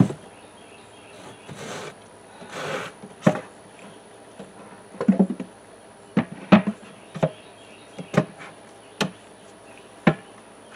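Wooden knocks and scrapes from a wooden top bar nuc box and its plywood lid being lifted, set down and handled on a plywood table: two short scrapes in the first few seconds, then a string of sharp knocks.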